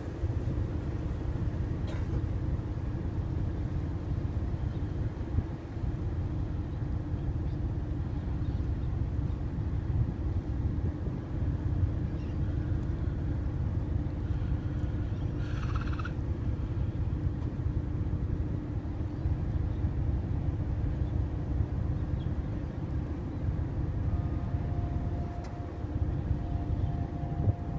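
Passenger ferry's engines running with a steady low drone and hum. A brief higher call cuts through about halfway, and a faint steady tone comes in near the end.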